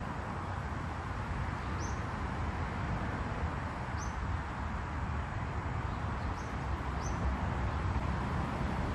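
A small bird calls outdoors, a short high note given four times a couple of seconds apart. Under it runs a steady low rumble.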